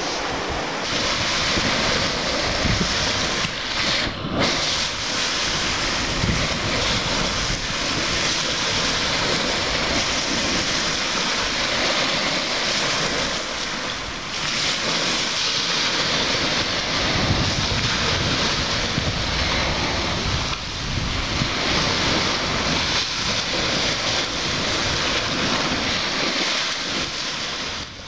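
Sea surf washing on the shore, mixed with wind buffeting the microphone in a shifting low rumble.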